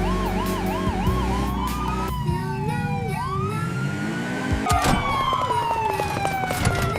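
Police car siren wailing, its pitch warbling quickly up and down for about two seconds, then changing to long sliding tones that fall and rise.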